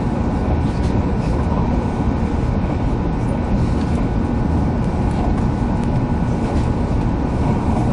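Cabin running noise of a 300 series Shinkansen train at speed: a steady rumble of wheels on rail heard inside the passenger car, with a faint steady whine over it.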